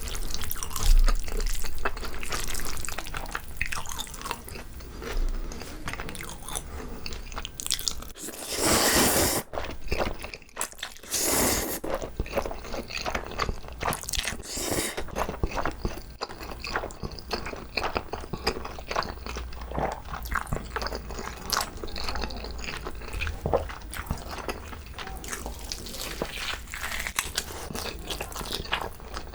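Close-miked eating: wet chewing, smacking and biting, with two louder noisy bursts about nine and eleven seconds in.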